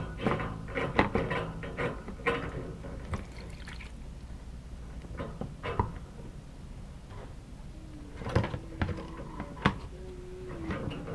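Irregular clicks and knocks of hands working the dishwasher's inlet valve fittings and hose, with water running out of the disconnected fill hose into a catch container.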